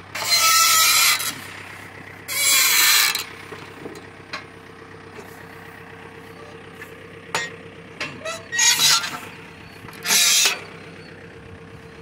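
Four rasping metal scrapes, each up to about a second long, as the arms of a hay bar rake are pulled and slid out by hand to widen it. A tractor engine idles steadily underneath.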